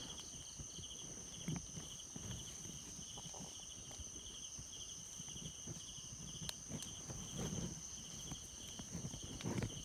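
Insects chirping in an even pulse a little under twice a second over a continuous high buzz, with faint soft footsteps of someone creeping forward.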